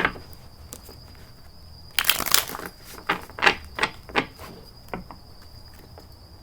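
Tarot cards being handled: a brief rustling shuffle about two seconds in, then a quick run of sharp snaps and taps as cards are drawn and laid down.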